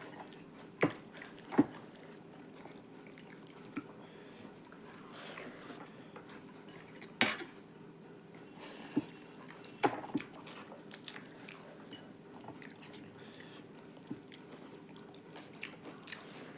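Sporadic short clicks and smacks of people eating a meal of rice and curries, with a steady low hum underneath.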